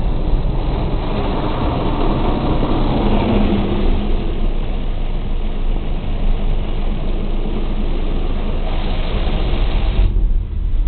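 Automatic car wash heard from inside the car: a steady, loud rumble and hiss of water jets and wash machinery on the car's body. The higher hiss cuts off suddenly about ten seconds in.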